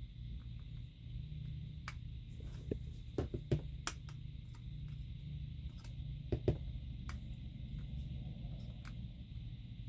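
Small clicks and taps of tools being handled on a repair bench over a steady low hum, clustered about three to four seconds in and again about six and a half seconds in.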